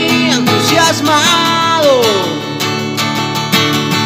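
Music: a song backed by guitar, its melody line sliding up and then down in a long, slow glide with no words.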